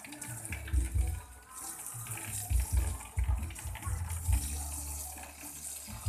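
Water running, with irregular low bumps and thuds.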